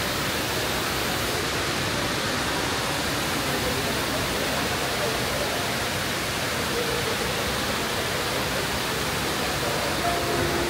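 Steady, even rush of water falling in the Dubai Mall's indoor waterfall.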